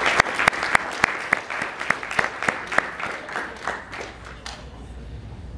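Audience applauding, the clapping thinning out and dying away about four and a half seconds in.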